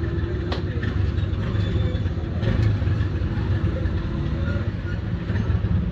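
Street traffic: motor vehicle engines running nearby, a steady low rumble.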